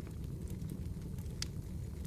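Wood fire burning: a steady low rumble with scattered sharp crackles and pops, the loudest about one and a half seconds in.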